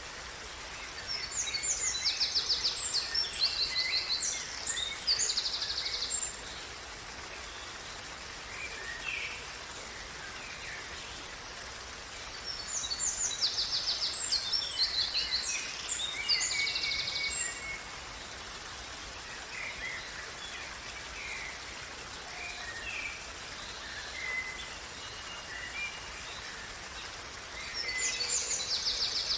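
Running water of a small stream, a steady rushing, with songbirds singing over it: bouts of quick, high, repeated notes near the start, in the middle and again at the end, and scattered shorter chirps in between.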